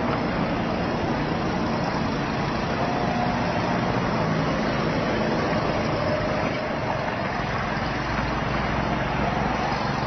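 Steady motor vehicle noise, engine and rolling noise together, holding an even level.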